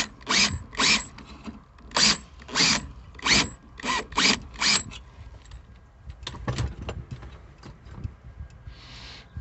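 Power drill run in a quick series of short trigger bursts, about a dozen in five seconds, enlarging a pop-rivet hole that was a little tight. A few faint clicks and knocks follow.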